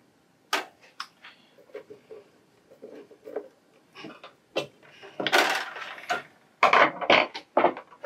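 Handling noises of wiring work at a power supply's screw terminals: small clicks and taps of a screwdriver and wires, a rustle about five seconds in, then several sharp knocks near the end.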